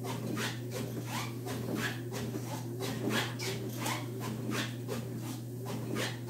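Motorized treadmill running with a steady motor hum, and footsteps landing on the moving belt about twice a second.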